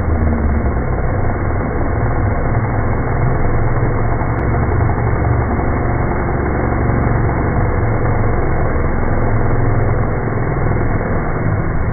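Chainsaw engine running steadily at a low, even speed, with no revving.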